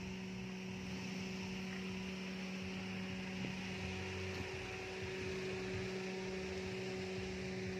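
A steady low electrical-sounding hum with a fainter higher tone over a light hiss.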